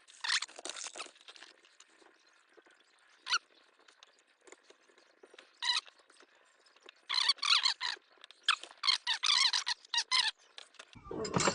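Metal parts squeaking as they rub together, in short bursts of wavering pitch, with a denser run of squeaks in the second half, while a steering-wheel quick-release hub is being fitted.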